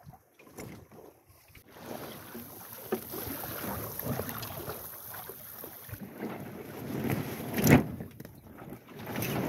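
Water swishing and splashing along the hull of a Wayfarer sailing dinghy under way, with wind on the microphone. A short loud thump about three-quarters of the way through.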